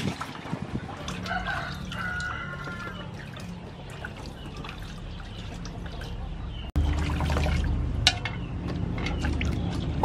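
Water sloshing and splashing in a metal basin as vegetables are washed by hand, with light knocks of the vegetables against the basin. There is a short break in the sound about seven seconds in.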